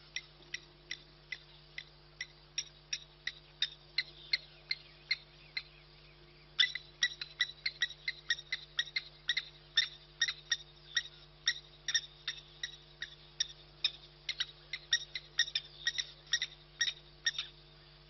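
Rapid series of short, sharp animal calls, about three a second at first. A second caller joins about six seconds in and the calls become denser.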